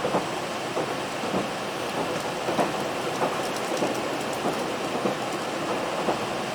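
KiHa 261 series diesel express train running on the line: a steady rushing rumble of wheels on rail, scattered with irregular clicks and knocks.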